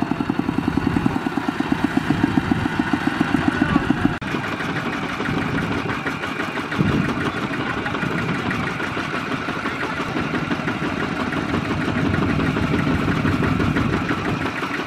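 Single-cylinder Kubota diesel engine of a two-wheel walking tractor (power tiller) chugging with an even, fast thump as it hauls a trailer of rice sacks. About four seconds in the sound breaks off abruptly and the engine then idles steadily while the tractor stands.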